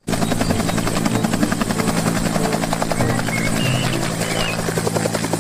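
Bell UH-1 "Huey" helicopter lifting into a low hover, its two-blade main rotor chopping in a fast, even beat over the steady drone of the engine.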